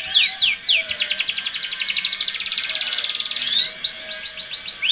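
Domestic canaries' mating song: a few quick downward-sweeping whistles, then a long, very rapid trill of about three seconds, then sweeping whistles again near the end. This is the breeding-season mix of a male's rolling song and a female's calls to the male, used to bring canaries into breeding condition.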